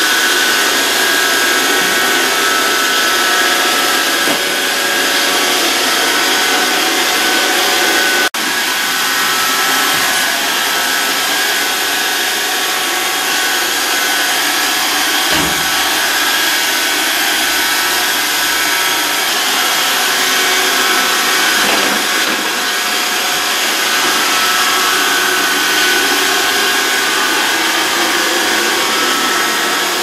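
Roomba robot vacuum running: a steady whir of its suction motor and brushes with a steady high whine on top. The whir cuts out for an instant about eight seconds in.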